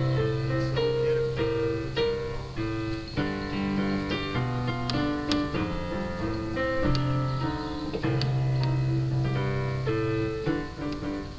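Background music played on a keyboard: a moving melody over long-held bass notes.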